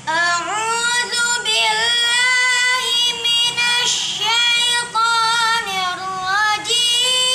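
A boy's voice chanting a Qur'an recitation, with long held notes that glide and turn between pitches, and a few short breaths between phrases.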